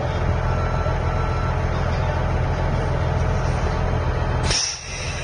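Heavy diesel truck engine running steadily, a concrete mixer truck, with a low even hum. It cuts away abruptly about four and a half seconds in.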